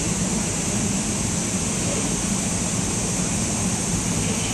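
Steady rushing background noise of a large indoor arena, even throughout with no distinct sounds standing out.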